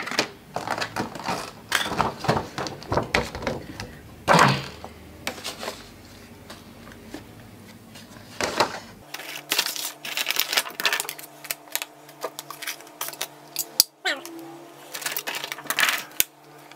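Metal spoon clinking and scraping against a metal plate as rice and noodles are pushed and scooped around it, in irregular clatters with a couple of louder knocks.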